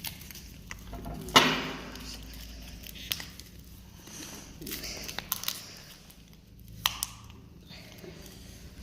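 Handling of a plastic glue bottle while more glue is added for slime: a few sharp clicks and light crinkling, the loudest click about a second and a half in.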